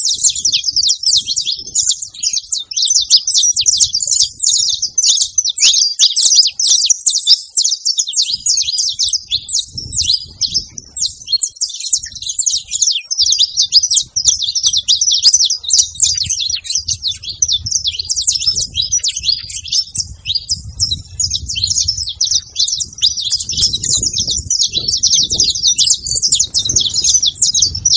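A flock of saffron finches chirping together, many short calls overlapping into a dense, continuous chatter, with a faint low rumble underneath from about eight seconds in.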